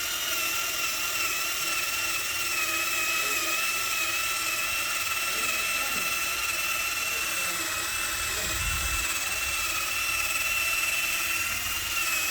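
Electric drill fitted with a wide sanding wheel, running at steady speed while sanding rust off a metal exhaust: a steady high whine that cuts off right at the end.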